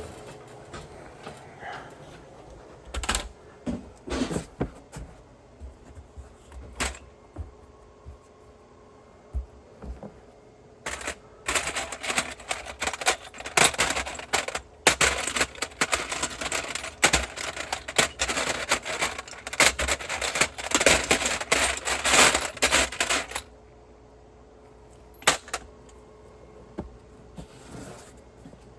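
Metal hand tools and hardware clicking and rattling: scattered single clicks, then about twelve seconds of dense, rapid clicking, then a few more clicks.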